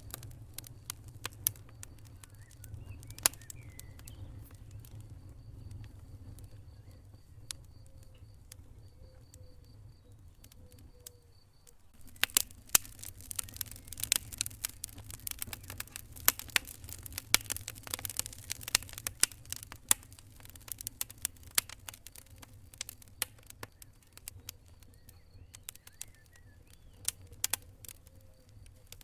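Wood fire crackling and popping in a fireplace over a low, steady rumble of flames. The pops are sparse at first, then turn into dense, rapid crackling after about twelve seconds.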